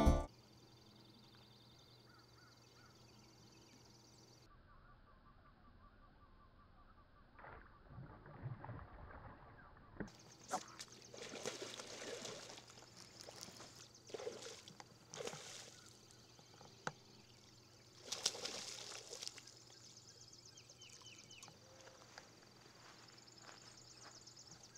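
Water splashing as a bass strikes a topwater frog and thrashes at the surface: several separate splashes in the second half, the longest lasting about a second.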